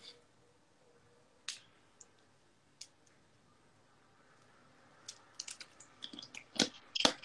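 Scattered soft clicks and crackles from a plastic water bottle being handled, opened and drunk from. A few single clicks come at first, then a denser run of crackling clicks near the end.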